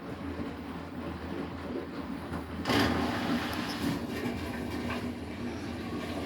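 Beko WTK104121W front-loading washing machine drum turning with two pillows inside, a steady low rumble. About two and a half seconds in it suddenly gets louder with a rushing noise that carries on.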